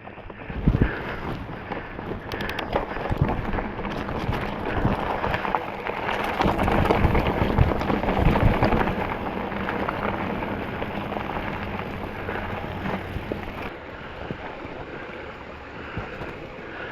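Specialized Stumpjumper 6Fattie mountain bike clattering over rocks and roots: a steady rattle thick with knocks and scrapes, loudest around the middle.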